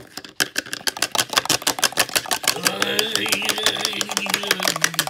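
A spoon knocked rapidly and repeatedly against the edge of a container, about nine sharp taps a second, to shake a scoop of mayonnaise off into it. From about halfway, a man's voice holds one long note under the tapping.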